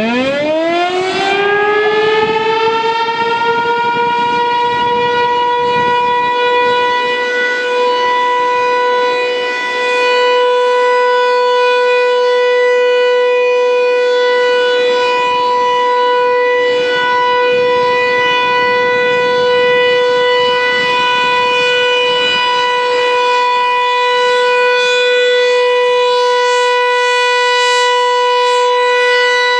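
American Signal T-135 electromechanical outdoor warning siren winding up from a low growl to full pitch in the first few seconds, then holding one steady, loud tone with slight swells as the rotating head turns. It is sounding a steady alert signal for a scheduled siren test.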